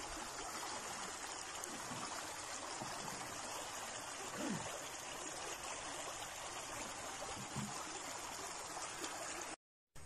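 Shallow creek water running over rocks: a steady rushing hiss that drops out suddenly near the end.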